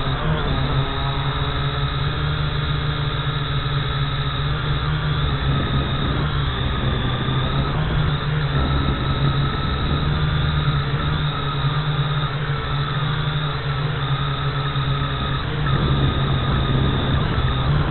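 Quadcopter drone's motors and propellers running with a steady buzz, heard up close from a camera mounted on the drone itself, with a low rumble of wind noise underneath.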